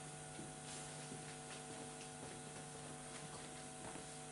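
Steady electrical mains hum, several fixed tones over a faint hiss, with a few faint clicks and knocks scattered through it.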